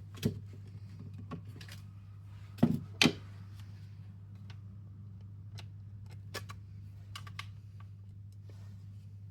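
Irregular small clicks and light knocks of hand tools and rifle parts being handled on a workbench while an airsoft rifle's pistol grip is screwed on, with three louder knocks, one at the start and a close pair around three seconds in. A steady low hum runs underneath.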